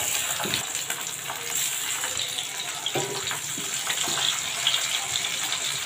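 Pieces of turmeric-rubbed ribbonfish sizzling steadily as they fry in hot mustard oil in a kadai, with a few short clicks as more pieces go into the pan.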